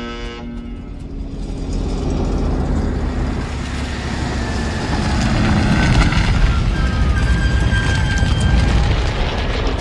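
Large truck driving close by, its engine rumble building over the first few seconds and staying loud. Thin high squealing tones come in late on.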